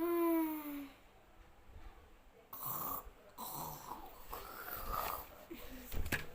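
A person snoring: a run of rasping snores, one roughly every second, starting about two and a half seconds in, after a short hummed "hmm" at the start. There is a short thump near the end.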